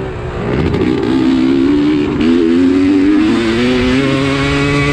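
Dirt bike engine under load, revving up in the first couple of seconds, holding high revs, then easing off near the end.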